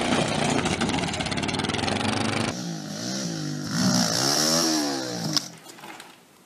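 Motorcycle engine running hard at high revs, then a dirt bike's engine revving up and down in pitch several times. A sharp knock near the end.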